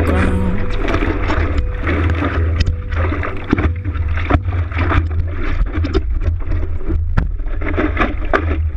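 Water splashing around a stand-up paddleboard, with many short irregular splashes, over a steady low wind rumble on the camera's microphone.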